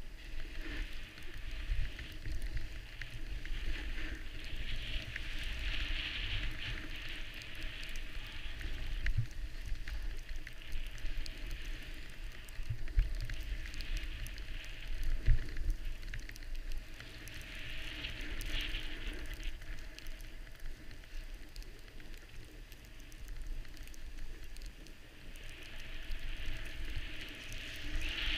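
Skis hissing and scraping over snow through a series of turns, the hiss swelling with each turn every few seconds, over a steady low rumble of wind on the microphone.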